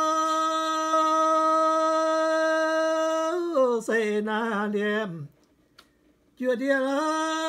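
A man chanting an old song unaccompanied. He holds one long, even note for about three and a half seconds, then wavers and falls away, pauses for about a second, and starts the next line near the end.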